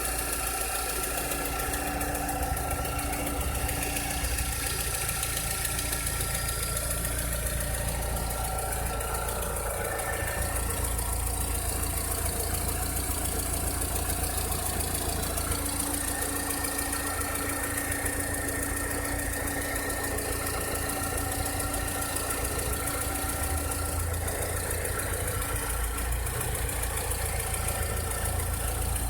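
Volkswagen SpaceFox 1.6 four-cylinder flex engine idling steadily, with a strange noise from the engine that the owner is worried about.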